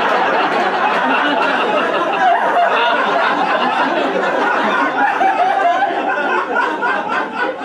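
Live theatre audience laughing, a dense, loud, sustained laugh.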